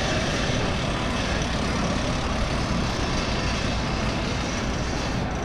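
Steady, busy city street noise, mostly road traffic.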